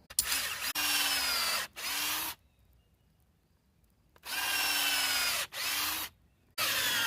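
Electric drill boring holes into a steel hammer head, run in short stop-start bursts. The motor's pitch sags as the bit bites into the steel and rises again as it frees up.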